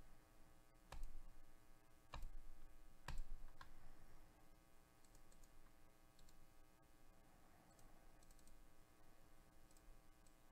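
Clicks from working a computer at a desk, a mouse and keys being pressed. There are three sharp clicks about a second apart in the first few seconds, then faint light ticks, over a faint steady hum.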